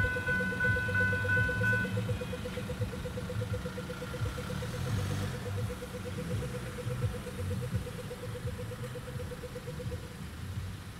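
Level crossing's electronic bells ringing as the crossing resets after a train: the main bell tone cuts off about two seconds in and a fainter pulsing ring carries on until near the end while the boom gates rise. Idling road traffic runs underneath.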